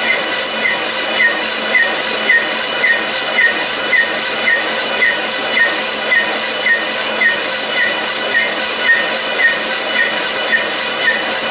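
Workshop machine running with a steady loud hiss and a short chirp repeating evenly about twice a second.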